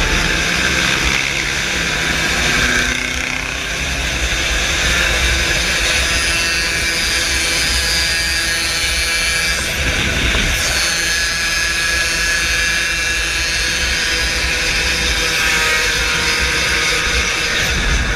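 Two-stroke moped engine buzzing steadily at riding speed, its pitch wavering a little with the throttle, with wind rumble on the onboard microphone.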